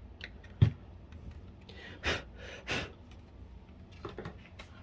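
Handling noise from work on a PS3's case parts: a single sharp knock about half a second in, two short breathy puffs around two seconds in, and a few light clicks near the end.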